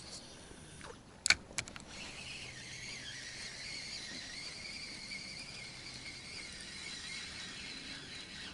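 A couple of sharp clicks about a second in, then a spinning reel cranked steadily, its gears giving a continuous high whine as the line and lure are wound in.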